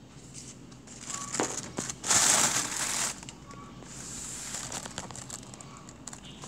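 A plastic bag crinkling loudly for about a second as green chili peppers are handled, with softer rustling and a few light knocks around it.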